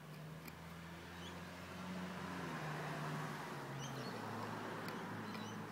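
A motor vehicle's engine running nearby, a low hum growing louder toward the middle and easing off near the end, with a few faint clicks from a puppy gnawing a large bone.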